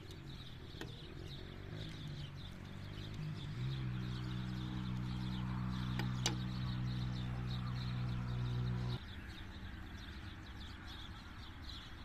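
Birds chirping over a steady low motor hum that grows stronger a few seconds in and stops abruptly about nine seconds in, with a couple of light clinks of a ladle around the middle.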